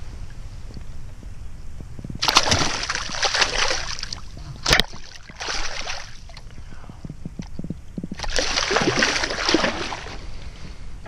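A hooked redfish (red drum) thrashing at the surface beside the boat, splashing water in three bursts of a second or two each, with one sharp knock about halfway through.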